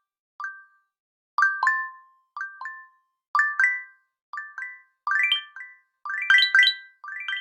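An Android 11 Go Edition phone tone: a mallet-like chime melody of short, quickly fading notes. The notes come in groups of one to three about a second apart, and near the end they grow denser and louder with higher notes added.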